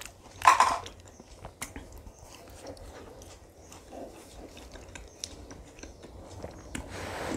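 Close-miked eating of frozen kulfi: biting and chewing with many small wet mouth clicks, and one louder bite about half a second in.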